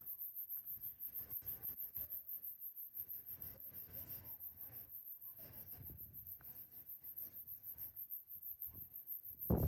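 Rapid, rhythmic scraping or rubbing strokes by hand on a surface, about five or six a second, with a louder knock near the end.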